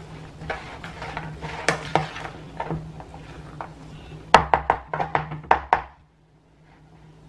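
White plastic spoon stirring and tossing a salad of kidney beans, chickpeas and sweet corn in a plastic bowl: soft scraping and clacking of the spoon against the bowl, with a quick run of sharper knocks about four seconds in. The stirring stops about six seconds in.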